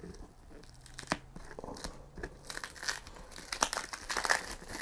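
Plastic cling wrap being picked at and peeled off a cardboard box: small crinkling and tearing crackles, scattered at first and getting busier over the last couple of seconds.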